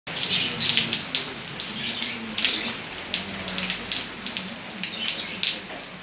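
Rain falling and splattering, an uneven patter of drops.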